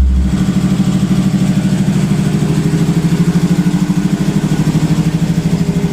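An engine idling steadily with a fast, even pulse. A deep low hum cuts off just after the start.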